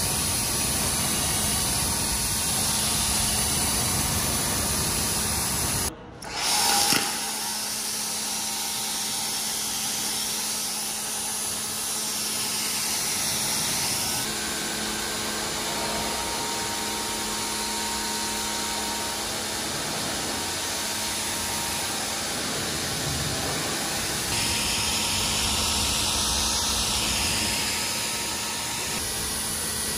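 Pressure washer running, its jet of water hissing against a car's wheel, glass and paint over the hum of the washer's motor. The sound briefly drops out about six seconds in.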